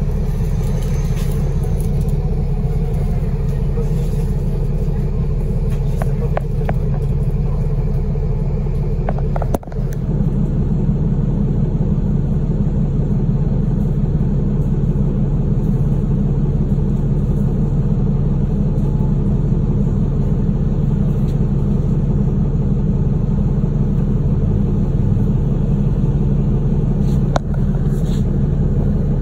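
Cabin sound of a NEFAZ-5299 city bus running: a steady low engine and road rumble. There is a sharp click about ten seconds in and another short click near the end.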